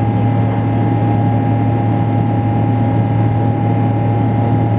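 Boeing 777-300 cabin noise in flight: the jet engines and rushing airflow make a loud, unchanging drone with a deep hum and a thin steady whine above it.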